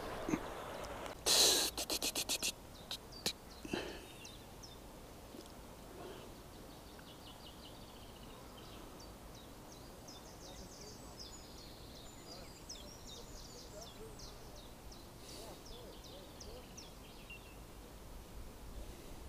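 Handling knocks and a quick run of sharp clicks as the camera is moved and set down, with a couple more clicks just after. Then quiet lakeside background with faint high bird chirps.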